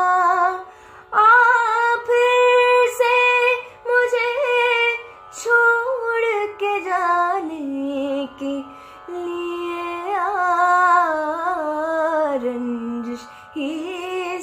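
A woman singing a ghazal solo in Hindustani classical style, drawing out long ornamented phrases with gliding, wavering notes, broken by short pauses for breath. A faint steady drone holds beneath the voice.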